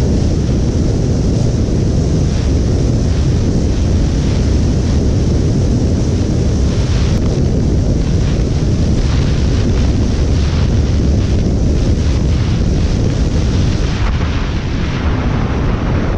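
Heavy wind rumble on the microphone of a KTM Duke 250 single-cylinder motorcycle held flat out at about 135–137 km/h in sixth gear, with the engine running under it. The sound is steady and loud throughout and eases slightly near the end.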